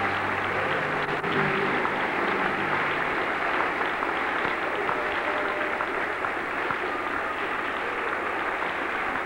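Audience applauding, with the last held notes of the music dying away in the first few seconds.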